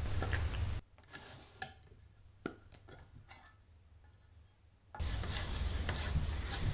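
A few light clicks and taps from handling a tin of polyurethane and its stirring stick, over a steady low hum that cuts out for about four seconds near the start and comes back.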